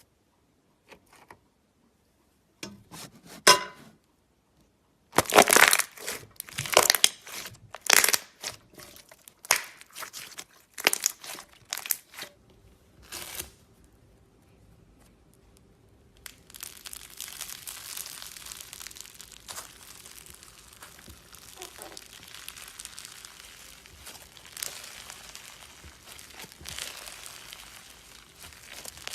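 Slime being squeezed and worked by hand close to the microphone: a run of sharp crackles and pops, then, after a short pause, a steady fine crackling.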